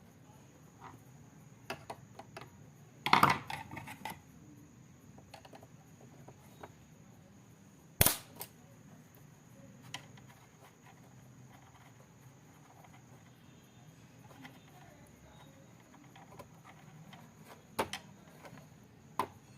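Scattered sharp clicks and knocks of parts and tools being handled, loudest a single snap about eight seconds in, with a short cluster near three seconds and two more near the end. A faint steady high-pitched tone runs underneath.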